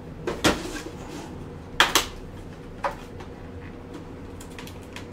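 Black hard plastic carrying case being handled and opened on a work mat, giving a few sharp plastic clicks and knocks. The loudest is a pair of clicks about two seconds in, followed by a lighter knock and a few faint ticks.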